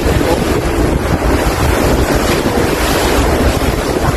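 Wind buffeting the microphone: a loud, steady rush with a heavy, unsteady low rumble.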